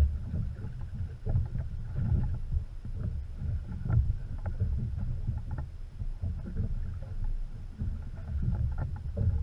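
Wind buffeting the microphone and water slapping against a small boat's hull, an uneven low rumble with scattered light clicks.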